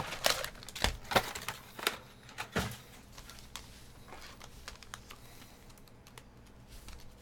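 Foil trading-card packs being handled and set down on a table mat: several sharp taps in the first three seconds, then quieter handling.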